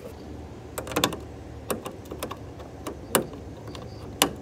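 Hand tools clicking and tapping on metal under a car's hood as a socket is worked by hand on a hood-vent nut: about seven sharp, irregular clicks, one of them near the end the loudest.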